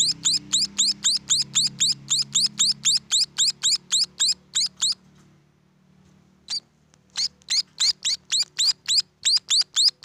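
Young munias (emprit) calling: a fast run of short, high, rising chirps, about four a second. The run breaks off about halfway through, gives one chirp a second or so later, then starts up again.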